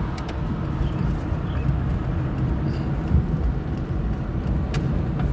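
Car driving, heard from inside the cabin: a steady low rumble of engine and tyres on the road, with a few faint clicks.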